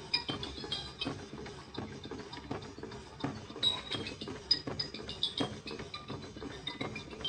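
Light background music with quick ticking, clicking percussion and short high notes.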